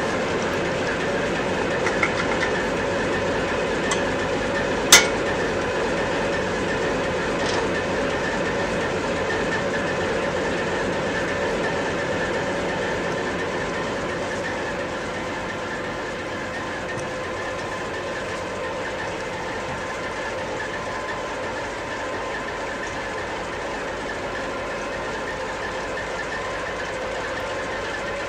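A steady mechanical drone with a hum held at a few fixed pitches, easing slightly in level about halfway through, and a single sharp click about five seconds in.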